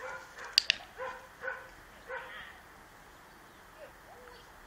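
A spaniel yipping, four short high yelps in the first two seconds or so, then a few soft whines near the end. Two sharp clicks in quick succession come about half a second in and are the loudest sounds.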